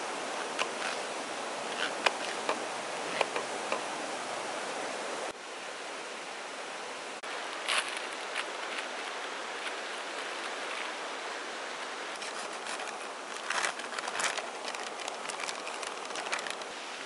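A kitchen knife cutting napa cabbage on a wooden cutting board, a series of sharp taps in the first four seconds. Later, plastic food packaging crinkles and is torn open, in quick clusters of crackles. A steady background hiss runs underneath.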